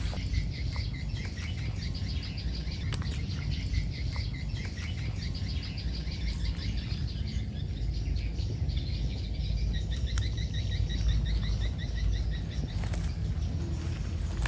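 Outdoor ambience: quick trains of high chirps repeat throughout, over a steady low rumble.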